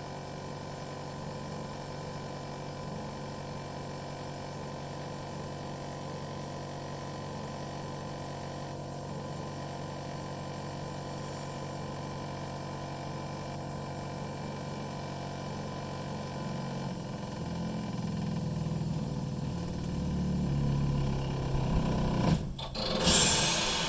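Air conditioner outdoor unit running with a steady hum and a few fixed tones. In the last few seconds a low rumble grows louder, then a short loud burst of noise comes at the very end.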